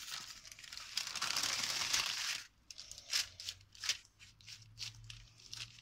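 Baking (parchment) paper crinkling as it is folded over a meat patty and pressed down by hand. A steady rustle runs for about two and a half seconds, then gives way to scattered crackles.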